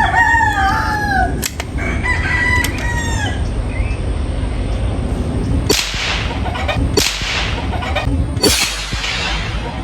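A rooster crows twice. Then come three sharp cracks about a second or so apart, each with a short ringing tail: shots from a Winchester Model 67 single-shot .22 LR rifle.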